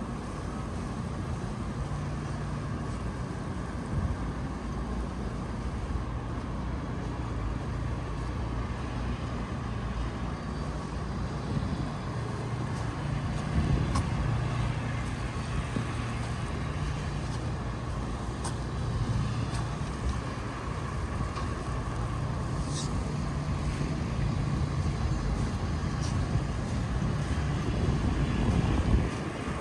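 City street traffic: a vehicle engine running with a steady low hum, getting gradually louder toward the end, with a few brief clicks on top.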